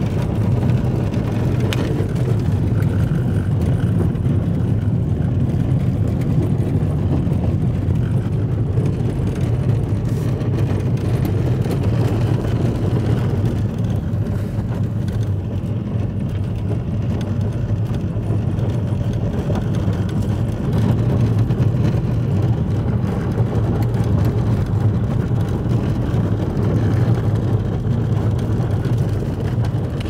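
Car driving along a gravel road, heard from inside the cabin: a steady low rumble of engine and tyres on gravel.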